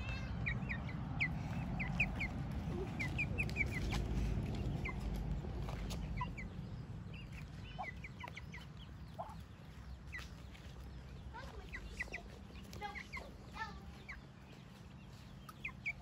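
Muscovy ducklings peeping: many short, high chirps in quick runs, thickest in the first few seconds and coming again in scattered bursts. A low rumble underneath fades out about halfway through.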